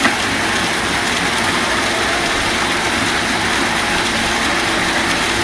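Heavy engine of concrete-pouring equipment running steadily under an even rushing noise.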